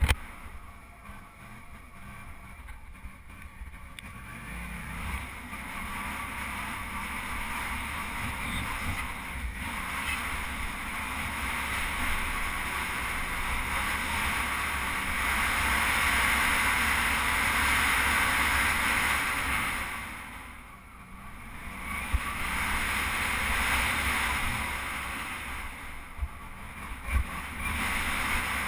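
Riding noise from a Suzuki V-Strom 650 dual-sport motorcycle on a dirt road: steady wind rush over a helmet-mounted microphone, with engine and tyre noise underneath. The rush builds as speed rises, falls away briefly about twenty seconds in, then picks up again, with a couple of knocks from bumps near the end.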